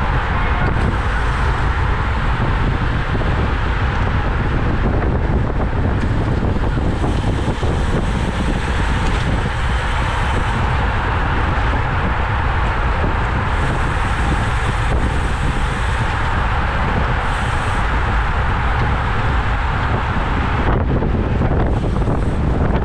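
Steady wind rushing over the microphone of a cyclist riding at race speed, with road noise underneath.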